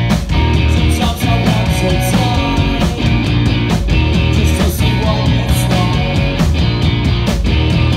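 Live rock band playing loudly: electric guitar, bass guitar and drum kit, with steady drum hits about once a second.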